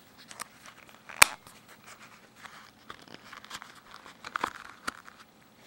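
Leather belt sheath being handled with a Case hobo knife set in it: soft rustling and creaking of the leather, with one sharp click about a second in and a few lighter clicks near the end.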